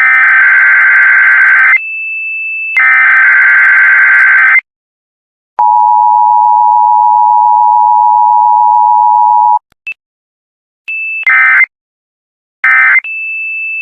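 Emergency Alert System tones: one-second SAME digital header bursts, a harsh warbling screech, with a steady high beep between them, then the two-tone EAS attention signal held steady for about four seconds. Shorter data bursts and beeps follow near the end.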